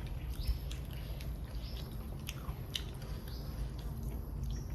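A person chewing and biting into crunchy hog plum (makok), with short crunches about once or twice a second over a steady low rumble.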